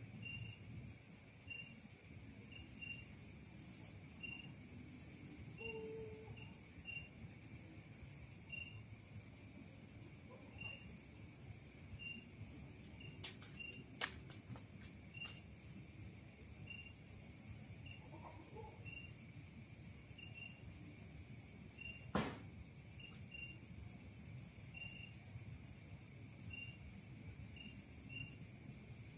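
Crickets and other insects chirping steadily: a short chirp repeats about once a second over a high, constant insect buzz. A few faint clicks come around halfway through, and one sharp click about 22 seconds in is the loudest sound.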